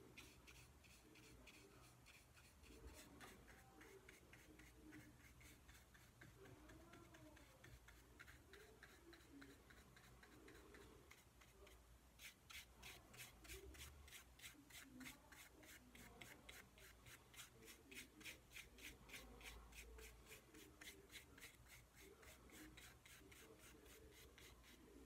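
Faint, quick back-and-forth strokes of a nearly dry paintbrush rubbing over a small painted wooden sign, a soft scratchy brushing that becomes more distinct and evenly paced about halfway through.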